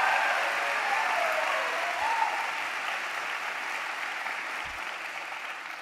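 Audience applauding, dying away gradually.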